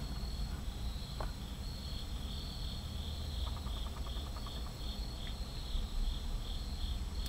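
Crickets chirping in a steady rhythm, about three chirps a second, over a low steady hum.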